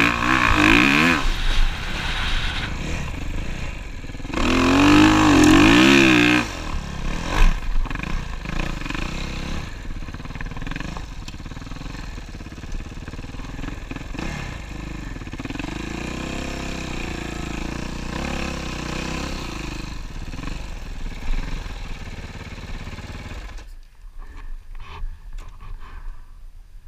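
Dirt bike engine revving hard twice in the first six seconds, then running at low revs while riding slowly over sand. The engine stops about 24 seconds in, leaving only faint clicks.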